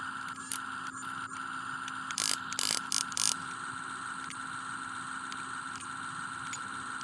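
Model RC excavator running with a steady electric whine. About two to three seconds in come four short, loud bursts of hissing noise.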